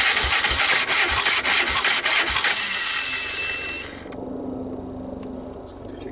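Honda TRX300EX single-cylinder engine being cranked over with the choke on and oil squirted onto its valve seats to raise its low compression. It makes a rasping, churning noise with uneven deep pulses for about four seconds, then stops without the engine catching.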